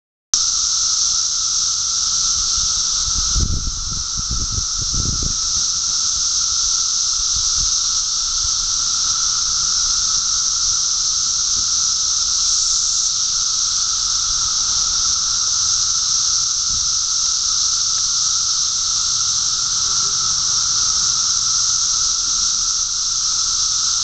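Massed chorus of 17-year periodical cicadas (Magicicada): a loud, unbroken, hissing drone with a steady lower whine beneath it. A few dull bumps come about three to five seconds in.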